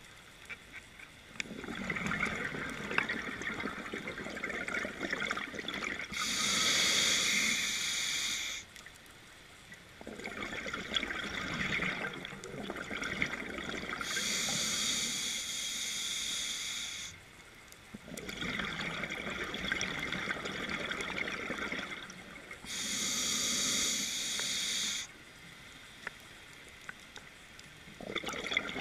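Scuba diver breathing underwater through a regulator: three slow breaths, each a hissing inhale of about two or three seconds, a short pause, then a burst of exhaled bubbles gurgling for about four seconds.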